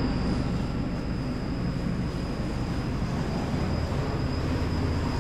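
Steady low mechanical rumble with a faint, constant high-pitched whine.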